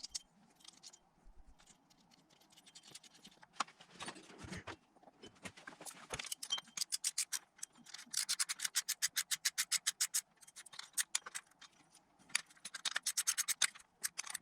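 Hand ratchet clicking in quick runs of about eight clicks a second as nuts are run down onto studs over washers, with scattered metallic clinks and rattles of small parts between the runs.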